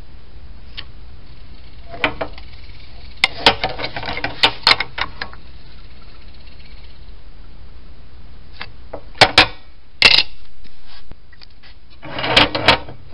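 Scattered clicks, taps and knocks of steel car-trunk hinges, a metal speed square and a marker pen being handled and set down on a workbench, in three loose groups, over a steady low shop hum.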